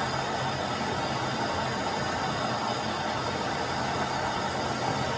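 Steady fan whir with a low motor hum that does not change.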